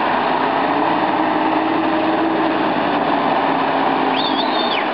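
Lifted Nissan 4x4's engine running under load as it drives through shallow water, with the splash of water around the tyres. A brief high wavering whistle sounds near the end.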